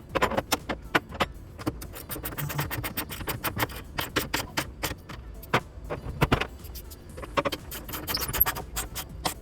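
Ratchet wrench clicking in uneven runs of quick, sharp clicks as the bed bolts and side bolts are tightened.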